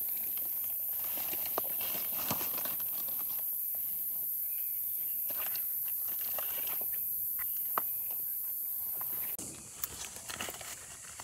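Dry leaf litter rustling and crackling, with small clicks, as hands dig bolete mushrooms out of the forest floor and trim them with a knife, over a steady high hiss that stops abruptly about nine seconds in.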